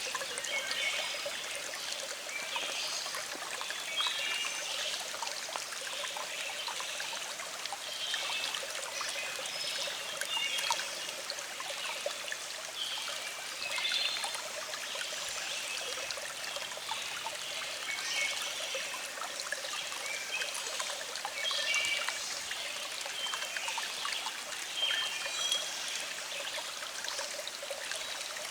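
Small stream flowing: a steady trickling babble, dotted with many small bright gurgles.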